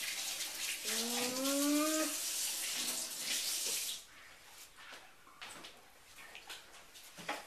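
A steady rushing hiss that cuts off suddenly about four seconds in. About a second in there is a short, rising, muffled vocal sound from a boy whose mouth is stuffed with marshmallow Peeps. After the hiss stops come a few faint small clicks.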